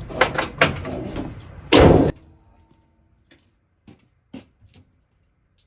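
Handling clicks and knocks, then one loud slam about two seconds in, followed by a few faint clicks.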